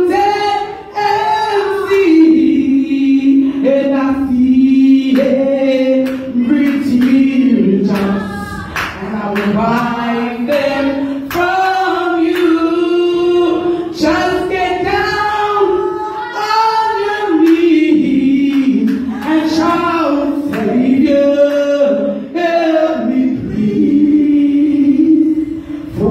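A woman singing a slow gospel song unaccompanied into a microphone, drawing out long, wavering held notes, with other voices singing along.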